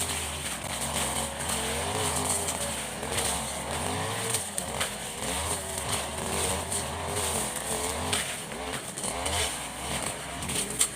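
Husqvarna 542 RBS backpack brushcutter's two-stroke engine running with a blade, cutting through brush, its pitch rising and falling as it is revved and loaded.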